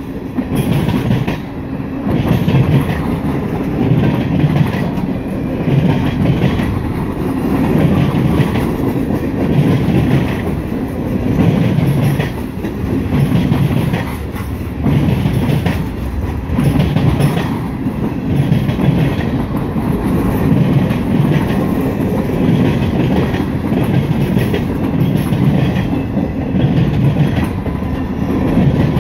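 Freight cars (tank cars, covered hoppers and gondolas) rolling past close by, with a steady rumble that swells about every second or two as each car's wheel sets go by, and wheels clicking over the rail joints.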